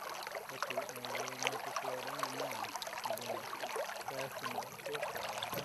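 River water rippling and splashing steadily, a dense patter of small splashes. A faint low hum sits underneath for the first half or so.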